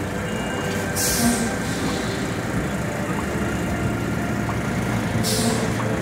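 Scania truck's diesel engine running at low speed as the truck is manoeuvred into line, with two short hisses of released air from the air brakes, about a second in and again near the end.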